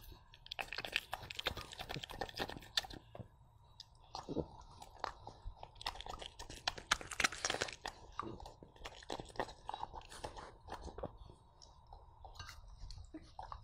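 A dog chewing and crunching on pieces of sweet potato, in an irregular run of wet crunches and clicks of the jaws, busiest in two spells.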